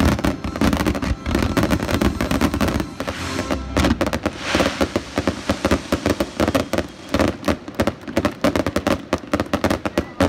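Aerial fireworks going off in a dense barrage: many sharp bangs and fast crackling pops overlap, growing thicker and quicker toward the end.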